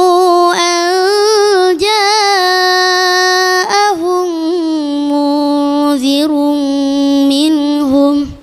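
A boy's high voice reciting the Quran in melodic tilawah style in the bayati maqam, with long held notes and ornamented turns. The phrase breaks off near the end.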